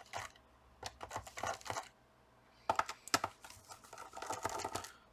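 Screwdriver working on the screws of a laptop's plastic bottom cover: a run of light clicks and ticks of the metal tip against screws and case, with a short, faint scraping whir in the second half as a screw is turned out.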